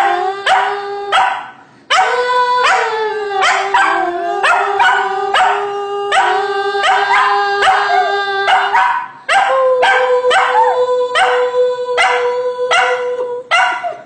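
A dog barking quickly, about two to three barks a second, over a long held howl. The sound breaks off briefly twice, and after the second break the howl starts again a little higher.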